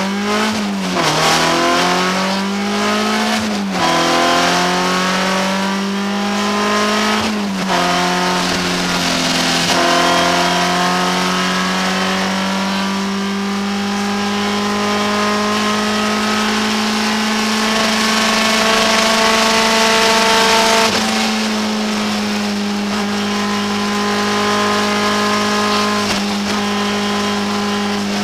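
BMW 318 iS's 1.8-litre four-cylinder engine at full throttle, heard from inside the car. The revs climb and drop sharply three times early on, then hold high and steady for a long flat-out stretch, dip briefly about two-thirds through, and fall near the end.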